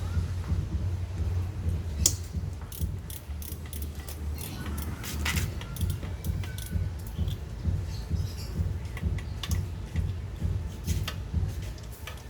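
Scattered sharp clicks and clinks, irregular and a few a second at most, over a steady low hum.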